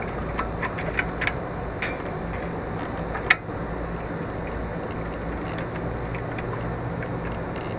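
Scattered light clicks and taps of the mower's new stop cable and its metal fittings being handled and worked into place, with one sharper click about three seconds in, over a steady background hum.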